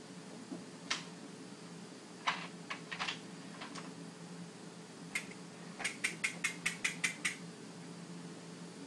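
A steady low hum with scattered sharp clicks: a single click, a few more a second or two later, then a quick even run of about nine clicks, roughly six a second.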